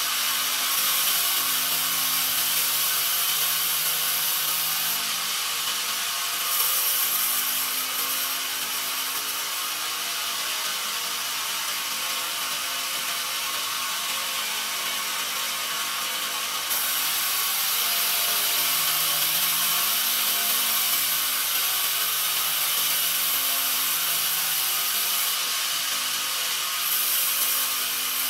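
Vertical band sawmill blade sawing through a pine log on its carriage: a steady, high, noisy sawing sound over a faint motor hum. The tone shifts a few times as the cut goes on.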